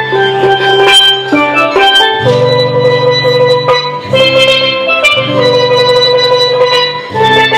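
Steel pan and acoustic guitar playing an instrumental tune together: ringing, struck pan notes over a strummed guitar, with low notes sounding in short phrases that break off and restart every second or two.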